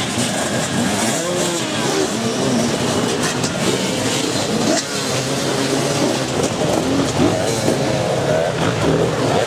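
A pack of enduro dirt bikes revving hard together, many engines rising and falling in pitch at once as the riders pass close by.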